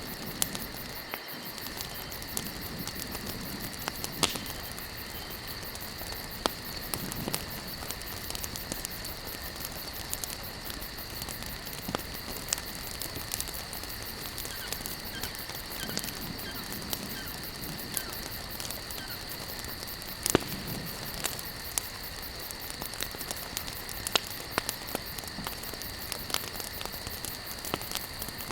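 Wood campfire crackling, with irregular sharp pops from the burning logs, the loudest about four and twenty seconds in. A steady high insect drone runs underneath.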